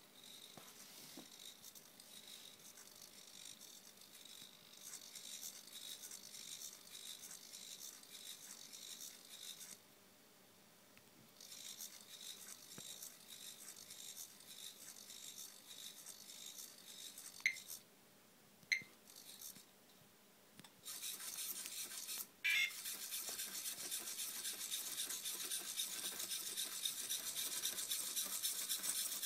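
Small servo motors of a homemade hexapod ladybug robot whirring as it walks, a faint high buzz. It stops twice for a second or two and gets louder for the last several seconds. A few brief sharp blips sound in the middle.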